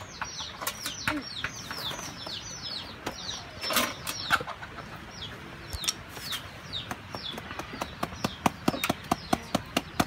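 Chicks peeping in short falling chirps, several a second. In the second half there is a run of quick sharp taps, about three to four a second, as the eel trap is knocked over the basket to shake out its catch.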